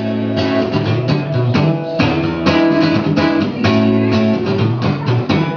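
Acoustic guitar strumming chords in a steady rhythm, with no vocals.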